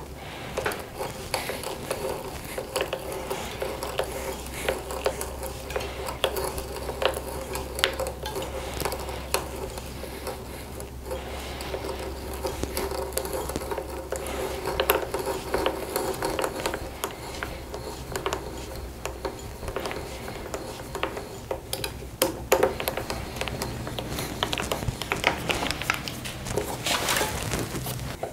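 Drill bit being turned by hand to bore peg holes through a wooden mortise. The bit gives a continuous scraping, rubbing sound with frequent small clicks and knocks.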